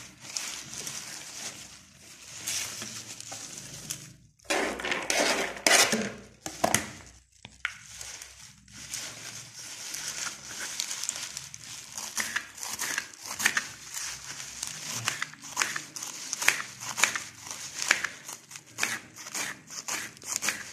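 Kitchen knife chopping fresh turnip greens on a cutting board: a quick run of crisp, crunching strokes as the blade cuts through the leaves and stems onto the board. The strokes grow louder and denser for a couple of seconds about five seconds in.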